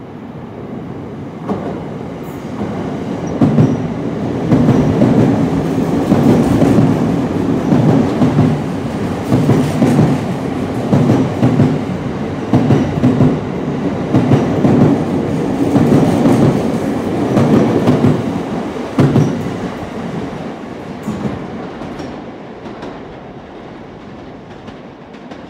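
Sotetsu 10000 series electric train running through the station at speed without stopping, wheels clattering over the rail joints. It grows loud as the train arrives, clatters past for about fifteen seconds, and fades as it pulls away.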